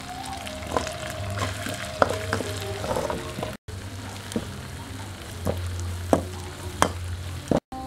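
Sauce sizzling in a steel wok, with a metal spatula scraping and clinking against the pan now and then as leafy herbs are stirred in.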